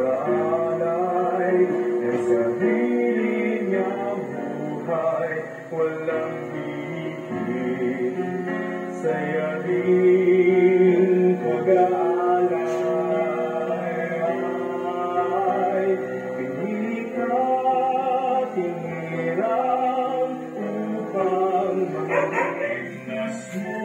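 A church hymn sung by a male voice over instrumental accompaniment, with long held notes, heard through a television's speaker from a broadcast Mass during communion.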